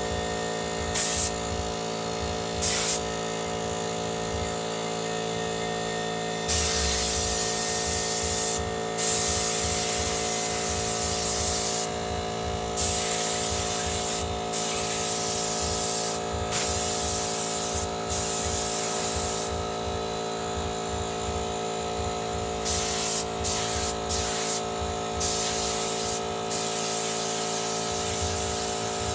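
24-litre Motomil air compressor running with a steady hum while compressed air is let out in repeated hissing bursts, some brief and some lasting several seconds.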